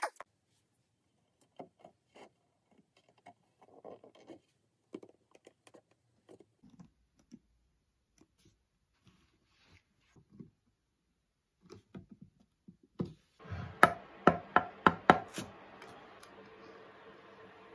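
Light knocks, clicks and scrapes of hands handling a wooden box and a small clamp on a workbench. About thirteen seconds in a steady hiss starts, and a quick run of about eight sharp taps follows.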